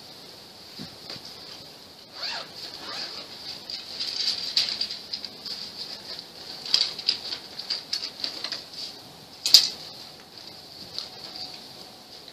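Rustling of a nylon tent carry bag being rummaged through, with irregular sharp clicks and clacks as items such as tent pegs are pulled out and set down, the loudest click about nine and a half seconds in. A steady high-pitched whine sits underneath throughout.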